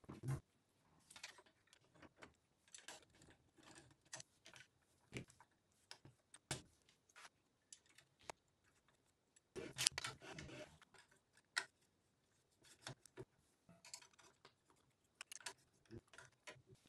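Faint, scattered clicks, taps and rustles of hands handling the plastic extruder, its holder and the cable drag chain while fitting them onto a 3D printer frame, with a louder clatter about ten seconds in.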